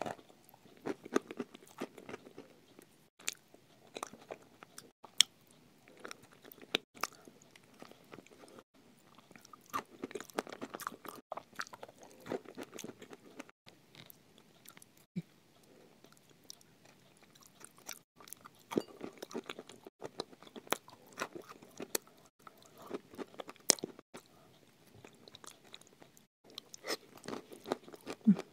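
Close-miked crunching and chewing of chalk pieces eaten with sour cream, the sharp crunches coming in bursts with short pauses between mouthfuls.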